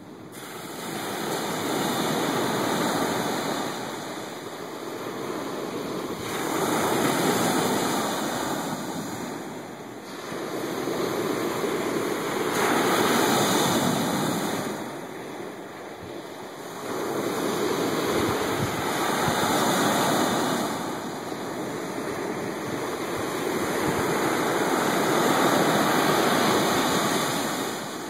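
Ocean surf breaking and washing up a sandy beach, swelling and fading in five surges, about one every six seconds.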